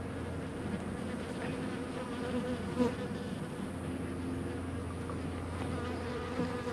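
Honeybees buzzing in a steady, continuous drone, with a short louder sound about three seconds in.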